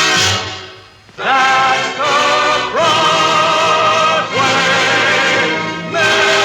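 Mono recording of a film-soundtrack orchestra and chorus. The music drops away about a second in, then comes back as long held chords with vibrato, changing chord twice.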